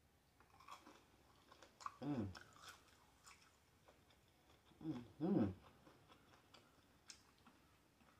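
A person chewing a fried nugget dipped in hot sauce, with small wet clicks and crunches of the mouth, and two short hummed "mmm" sounds about two and five seconds in, the second the louder.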